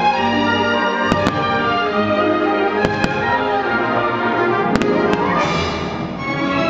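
Aerial firework shells bursting in three quick pairs of sharp bangs, about one, three and five seconds in, over loud show music.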